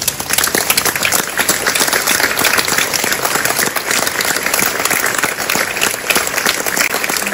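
Concert audience applauding, a dense, steady mass of hand claps.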